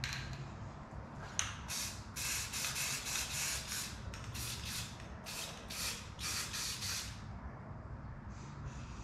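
Aerosol spray paint can spraying in a run of short hisses over about five seconds, with a few fainter ones near the end.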